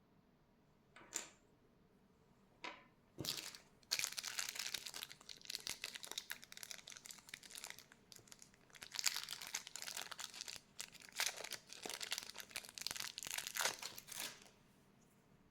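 Packaging being crinkled and rustled by hand during an unboxing: a few short rustles, then about ten seconds of continuous crinkling.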